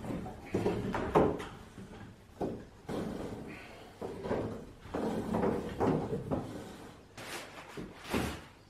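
Irregular knocks and scraping against wooden framing as electrical cable is pulled through roof trusses, with two sharper knocks near the end.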